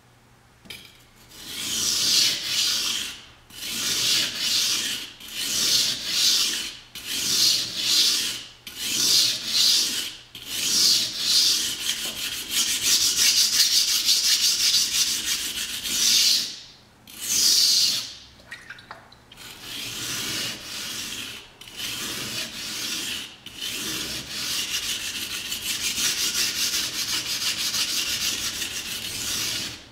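R2 steel kitchen knife blade scraped back and forth across a wet Japanese water stone in rasping strokes. The strokes come about one a second at first, then run together into faster, steadier scrubbing for most of the second half.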